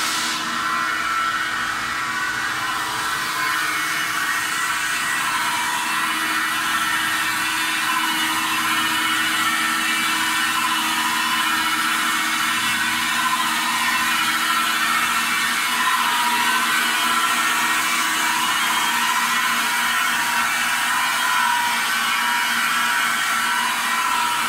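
Automatic dish head polishing machine running steadily, its motor-driven abrasive head grinding and polishing a stainless steel dish head. A steady mechanical whine of several tones over a grinding hiss.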